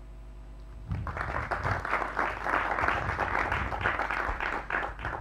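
Audience applauding, beginning about a second in.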